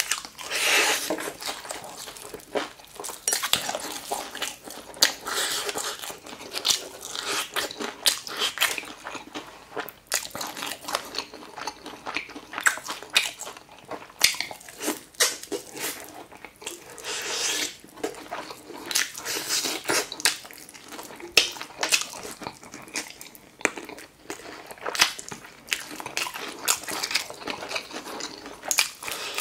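Close-up crunching of crispy fried chicken drumsticks being bitten and chewed: irregular crisp crunches of the fried coating, with wetter chewing between bites.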